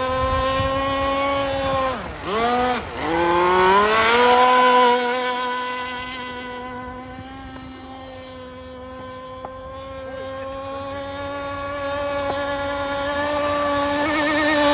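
Gas RC boat's small two-stroke engine running at high revs. It is let off sharply twice about two seconds in and then opened up again. The sound fades and then grows louder near the end as the boat runs away and comes back.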